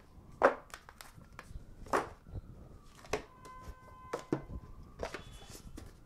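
Cardboard card-deck box and cards being handled on a tabletop: a string of separate knocks and taps as the box is opened and set down, the loudest about half a second in and again near two seconds.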